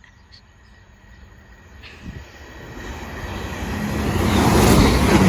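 A pair of Chiltern Railways class 168 diesel multiple units approaching: the rumble of wheels and diesel engines grows steadily louder from about two seconds in and is loudest near the end.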